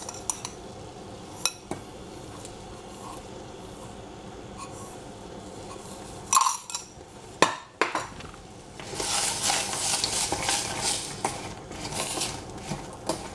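Kitchen dishes and utensils handled: a few light clinks, two sharp knocks a little past the middle, then a continuous run of scraping and stirring with a utensil against a dish for the last third.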